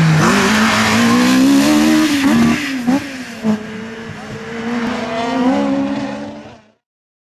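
Race car's engine revving hard as it powers out of a slalom hairpin, tyres squealing, with a dip in revs and two sharp pops about three seconds in, then pulling away and fading before the sound cuts off suddenly near the end.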